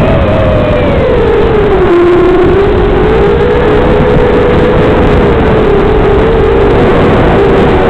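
Micro quadcopter's DYS 1104 7000kv brushless motors and four-blade props whining in flight, the pitch sinking about two seconds in and then wavering with the throttle, over a heavy rushing hiss.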